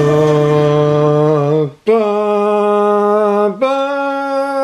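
Sung intro jingle: a voice holding three long notes, each one higher than the last, with short breaks between them about two and three and a half seconds in.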